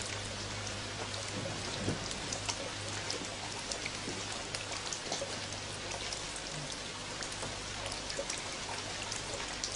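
Rain falling: a steady patter with many scattered drop ticks, over a low steady hum.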